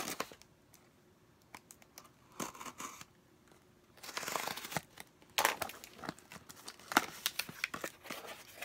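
A small cardboard shipping box being opened by hand: quiet handling with a few clicks at first, then a longer tearing rasp about four seconds in, followed by rustling and sharp snaps of cardboard.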